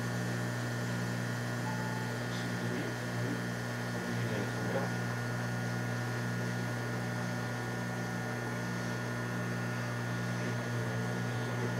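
Steady electrical hum inside a Seoul Metro 2000-series subway car standing at a station. A low note in the hum pulses on and off about once a second, and faint high steady tones sit above it.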